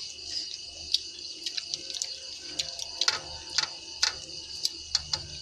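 Steady high-pitched trilling of night insects such as crickets, with scattered sharp clicks and taps from people eating by hand around metal bowls.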